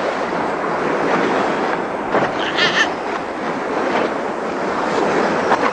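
Loud, steady rush of crashing sea water, the sea closing over the drowning Pharaoh. A brief high-pitched wavering sound cuts through about two and a half seconds in.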